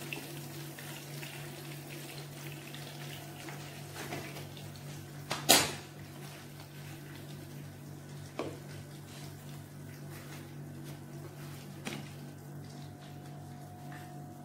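Chicken frying in a pan of oil, a steady sizzle over a low steady hum. One sharp knock about five and a half seconds in, with a few fainter knocks around it.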